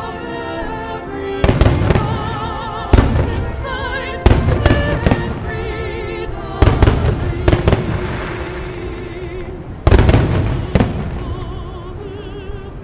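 Aerial firework shells bursting overhead: about seven sharp booms at uneven gaps of one to two seconds, each rolling off in a rumbling echo. Music with a wavering melody plays underneath.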